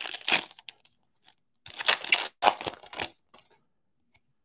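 Foil wrapper of a Donruss Football trading-card pack crinkling as it is torn open, in several short crackly bursts over about three seconds.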